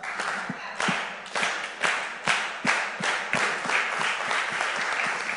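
Audience applauding: many hands clapping together, with some louder individual claps standing out.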